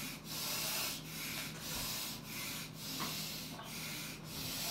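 Rhythmic rasping noise, swelling and fading about twice a second, over a faint steady low hum.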